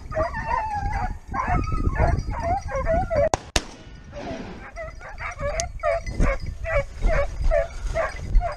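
Hunting hounds giving tongue in rapid, repeated yelping cries, the sound of dogs on a hare's trail. Two sharp clicks come about three and a half seconds in.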